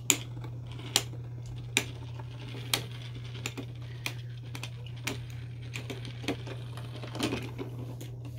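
Two 3D-printed Beyblade spinning tops circling together in a plastic bowl stadium, clacking against each other in sharp separate clicks, about one a second at first and more often later, over a low steady hum.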